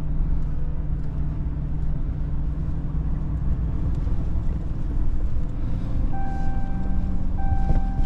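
Ram pickup truck heard from inside the cab as it drives slowly through deep snow: a steady low engine and road rumble. Near the end a thin steady tone sounds twice, briefly broken between.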